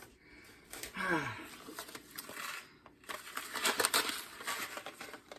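Crinkly rustling of a Knorr side-dish pouch being handled and opened, in irregular crackles.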